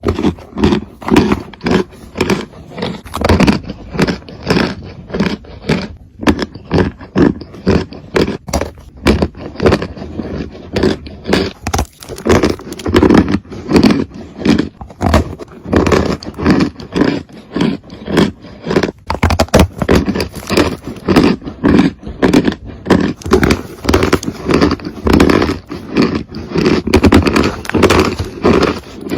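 Close-miked ASMR crunching: a brittle material is crunched over and over, with loud crunches coming every half second or so.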